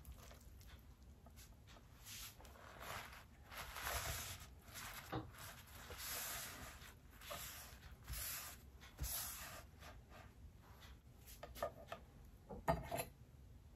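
Soft scraping and rubbing as papaya seeds are worked out of the fruit and dropped onto a wooden cutting board, followed by a few light knocks near the end, one louder than the rest.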